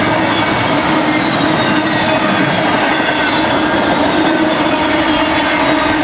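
Double-stack intermodal freight cars rolling past on steel wheels and rail: a loud, steady rolling noise with an even tone running through it.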